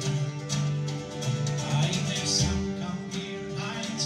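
Scottish folk band playing a lively tune live: fiddle and whistle on the melody over plucked strings and drums.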